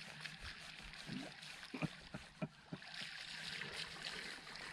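Faint water lapping against a boat's hull, with a few light knocks between one and three seconds in.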